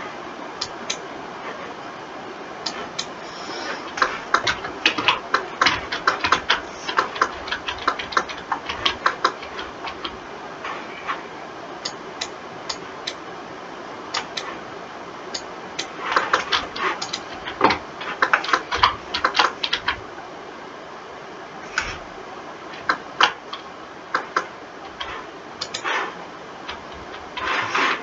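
Computer keyboard and mouse clicking in irregular flurries of quick, sharp taps, with pauses between them, over a steady faint hiss.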